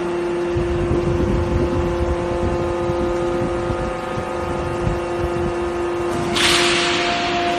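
Hydraulic copper-bar drawing machine running, its pump motor giving a steady pitched hum. About six seconds in, a sharp hiss starts and fades over a second or so, and a second, higher tone joins the hum.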